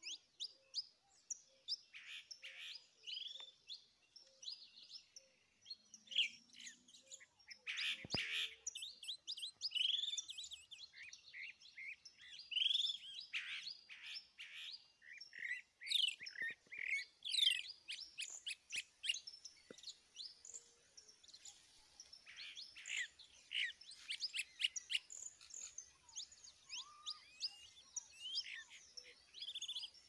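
Several wild birds singing and calling at once: a dense, overlapping chorus of quick chirps, trills and sweeping whistles.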